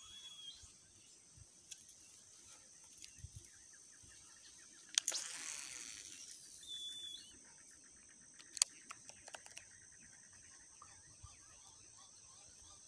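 Quiet open-country creekside ambience: a steady high-pitched hum with a few short whistled bird notes. About five seconds in there is a sudden rushing whoosh that fades over a second, the cast of a spinning rod with line running off the reel, and a sharp click follows a few seconds later.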